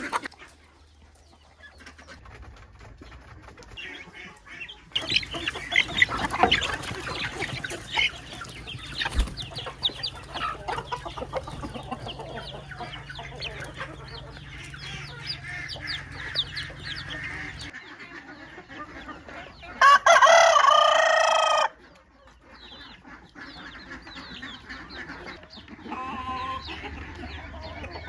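Chickens clucking, with a rooster crowing loudly once, about two seconds long, roughly two-thirds of the way through.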